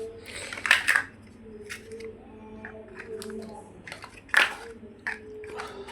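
Plastic building blocks being handled and pressed together: sharp clicks and rattling, the loudest just under a second in and again a little past four seconds.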